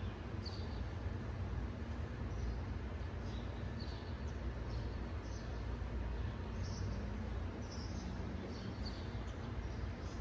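Small birds chirping in short, high calls, about once a second, over a steady background hiss.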